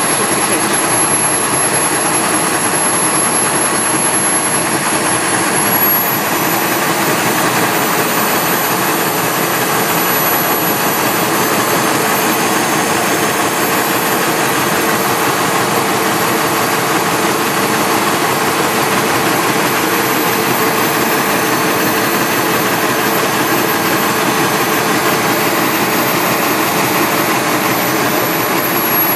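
Model gas turbine running at speed: a loud, steady jet roar with a high-pitched whine on top. The whine steps up in pitch about six seconds in and again about eleven seconds in, then drops slightly near the end.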